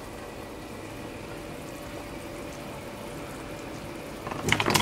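Pot of rawon simmering on a gas stove, a steady bubbling hiss. Just over four seconds in, potato chunks are tipped from a plastic bag into the pot with a louder, rougher rustle and splashing.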